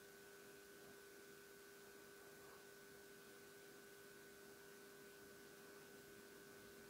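Near silence: faint hiss with two steady faint tones, one low and one higher, unchanging throughout.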